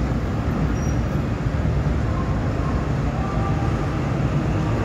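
Steady low rumble of the car ferry KM Kirana VII's engines as it manoeuvres to berth, swinging its stern toward the quay.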